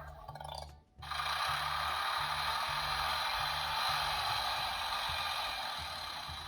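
Steady mechanical whirring and rattling from a noisy toy-vehicle sound effect. It starts about a second in after a short break, with the low notes of background music repeating underneath.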